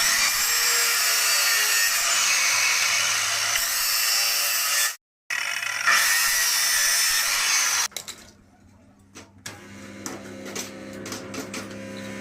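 A power tool running under load on metal with a harsh, high-pitched grinding noise. It cuts off suddenly about five seconds in, runs again, and stops near eight seconds. Quieter clicks and knocks of handling follow over a low hum.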